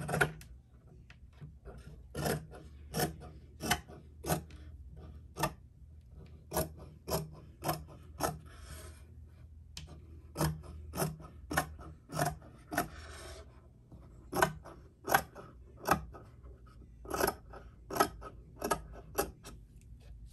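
Dressmaking shears snipping through fabric over and over, in short runs of sharp cuts about one every two-thirds of a second with brief pauses between runs, trimming the seam allowance along zigzag-stitched trim.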